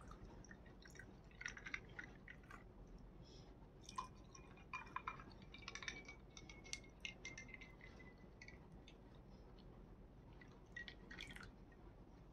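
Faint pouring of buttermilk from a blender jar into glasses over ice cubes, with scattered small clicks and drips against the glass.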